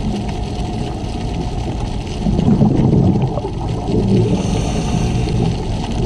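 A scuba diver's regulator breathing, heard underwater: exhaled bubbles rumbling about two seconds in, then a hissing inhale near the end.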